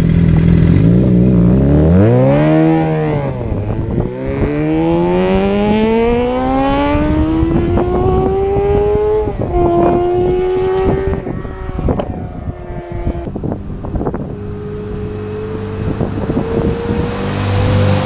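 Suzuki GSX-R 600's inline-four engine idling, blipped once with a quick rev, then accelerating hard away. Its pitch climbs in long rising sweeps with three upshifts, and the sound fades as the bike pulls into the distance.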